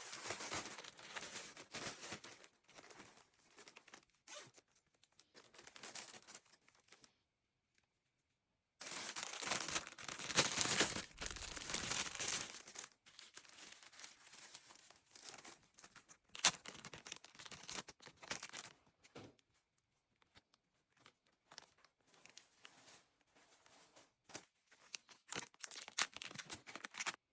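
Plastic packaging being torn open and crinkled by hand, in uneven rustling bursts, with a pause about a third of the way through and a long loud stretch of tearing just after it, then lighter crinkles and small clicks.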